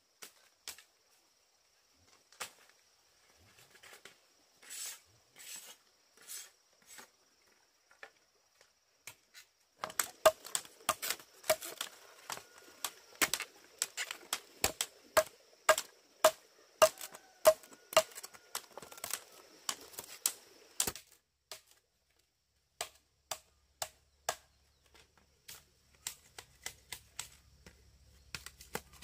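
A series of sharp knocks or chops: scattered at first, then a quick run of strikes, several a second, for about ten seconds from about a third of the way in, some with a short ring, before thinning out again.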